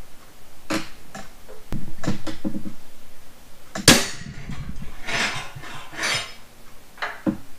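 Hammer striking a steel punch on the mower's steel frame rails to mark hole positions for drilling: a few sharp metal taps, the loudest about four seconds in, with tools being handled and scraped in between.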